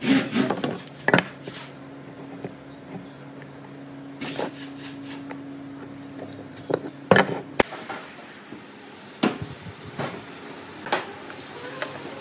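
Pieces of wood knocking and clattering on a wooden workbench as they are picked up and set down, in scattered sharp knocks, the loudest about seven seconds in. A steady low hum runs underneath and stops about two-thirds of the way through.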